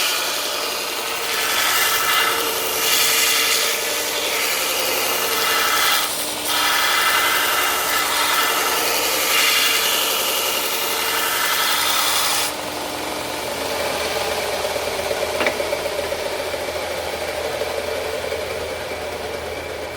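Belt sander grinding the bevel of a steel knife blade, a loud abrasive hiss that swells and eases over several passes. About two thirds of the way through the grinding stops and the sander keeps running on its own with a quieter steady hum.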